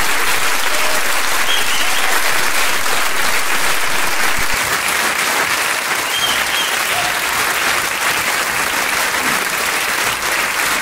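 Crowd applause: many hands clapping in a dense, steady stream.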